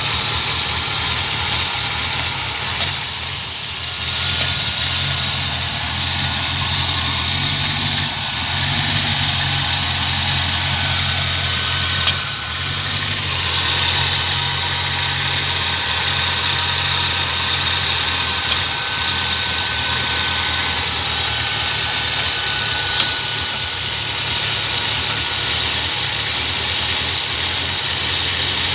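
BMW M60B30 3.0-litre V8 idling rough and low, at about 400–500 rpm, right after a cold start with no throttle, with a thin steady high whine over the engine note. The owner thinks a few knocks or clanks from the engine may be heard during this rough idle.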